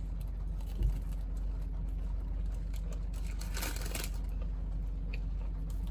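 Steady low hum of a car's engine running, heard inside the cabin, with a soft thump about a second in and a brief rustle a little past the middle.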